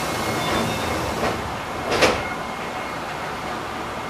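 Enshu Railway electric train (set 2007F) standing at a platform: a steady cab hum with a faint high tone, a couple of light knocks, and one short, sharp clunk about two seconds in, as its sliding passenger doors shut.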